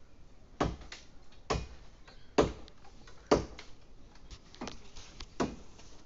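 Hand chopping into a tree branch: a steady run of sharp knocks of a blade biting wood, about one a second, six in all, the two in the middle the loudest.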